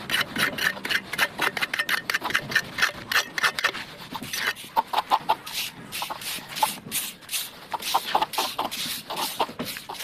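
Plastering trowel scraping and rubbing over wet plaster in quick, repeated strokes, about four a second.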